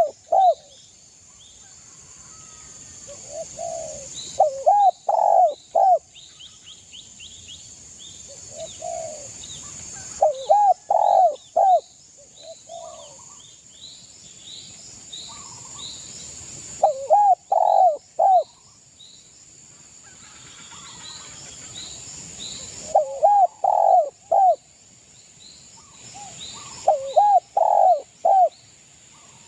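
Spotted dove (derkuku) cooing: short groups of three or four low, rounded coos, repeated about every six seconds. Small birds chirp faintly and high in the gaps.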